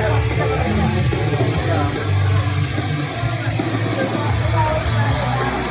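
Loud rock music with guitar, a heavy bass line and cymbal crashes.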